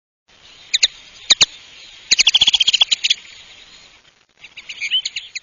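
Intro sound effect of short, high chirps: a couple of single chirps, then a quick run of about ten, then a warbling trill near the end.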